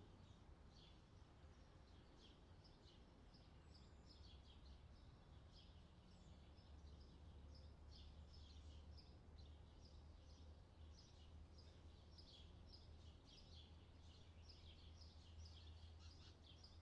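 Faint summer birdsong: songbirds giving a steady stream of short chirps, over a low steady hum.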